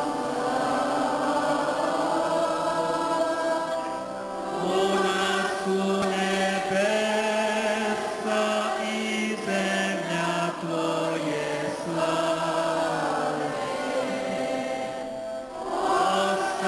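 A church congregation singing a hymn together in long held notes during Mass, with a brief break near the end before the next line begins.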